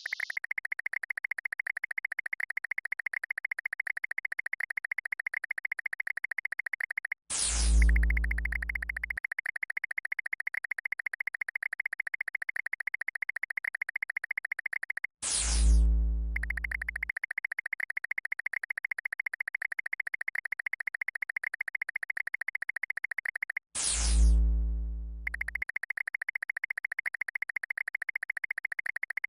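Synthesized electronic sound effects: a steady, rapidly pulsing buzzy tone, broken three times by a falling-pitch synth sweep with a deep boom that lasts about two seconds.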